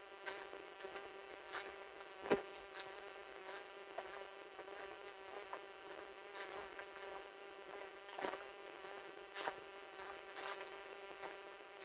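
Footsteps on a dry, leaf-strewn dirt trail, a soft crunch about once a second, over a steady, even buzzing drone that holds one pitch throughout.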